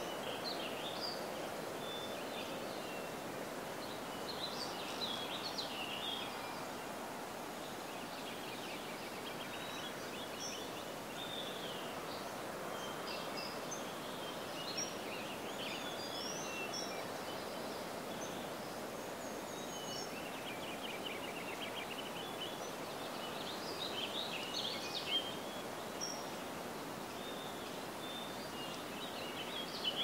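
Wild songbirds chirping in short, high calls that come in scattered clusters, over a steady rushing background noise.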